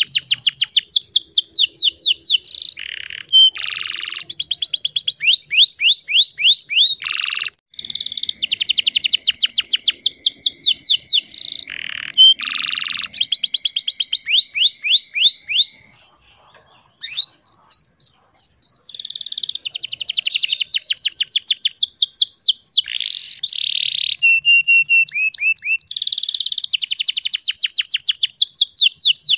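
Domestic canary singing long, rapid trills and rolls, with a brief break about halfway through before it resumes.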